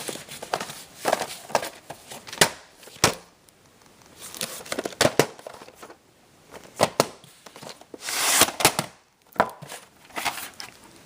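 Handling a VHS tape and its plastic case: a string of sharp clicks and knocks, with a longer rustle about eight seconds in.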